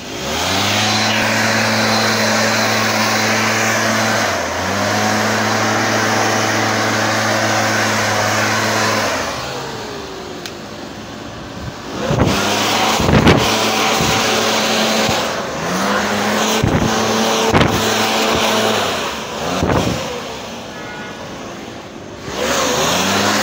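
Small engine of a motorized backpack disinfectant sprayer running at high speed, with a brief dip about four seconds in and a lull near ten seconds. In the second half it is revved up and down several times in quick drops and recoveries of pitch.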